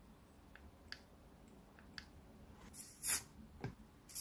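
Faint handling noise of a small model engine being tipped over on its wooden base: a few light clicks, then a brief rustle and a soft knock near the end.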